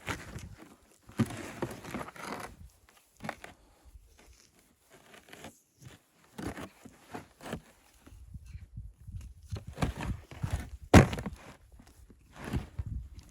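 Irregular crunching and knocking handling noises, with one sharp, loud knock about eleven seconds in.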